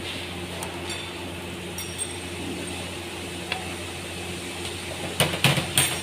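Metal parts or tools clinking together: a few light clicks, then a quick cluster of sharper, louder clinks near the end, over a steady low hum.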